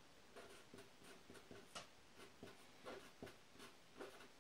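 Red felt-tip marker writing on paper: a run of faint, short strokes as the letters of a formula are drawn.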